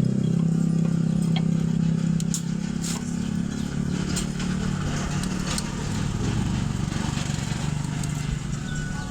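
A small engine running steadily, with scattered light clicks and taps over it.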